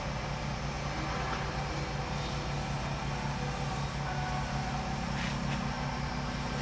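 Wood lathe running steadily with an even low motor hum, while CA clear finish is wiped onto the spinning pen blank with a paper towel.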